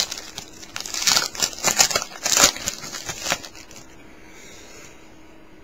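Trading-card pack wrapper crinkling as it is handled and torn open: a run of crackly rustles for about three and a half seconds, then only a faint steady hum.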